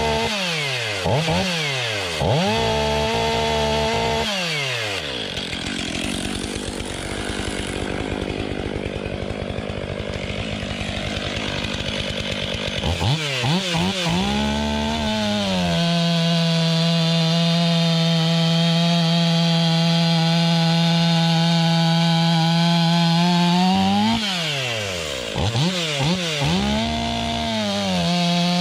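Large two-stroke gas chainsaw blipped up and down several times, then cutting through wood under load for several seconds. It revs up about halfway through and is held at a steady high rev for several seconds, then is blipped again near the end.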